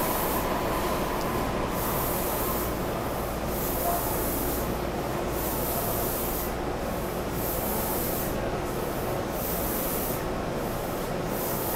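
Inside a stationary Meitetsu 3700-series electric train car: a steady hiss and low hum from the car's running equipment, with a high hiss that swells and fades every couple of seconds.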